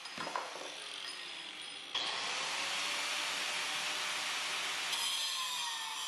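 Angle grinder with a thin cutoff wheel cutting half-inch mild steel round bar. It starts up sharply about two seconds in with a rising whine, runs with a loud hiss, and about five seconds in bites into the bar, its whine dropping in pitch under load.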